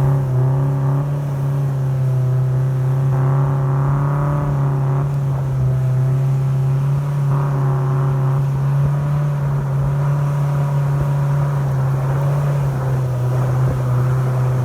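Speedboat engine running steadily under way, heard from on board: a constant low drone with a stack of higher overtones.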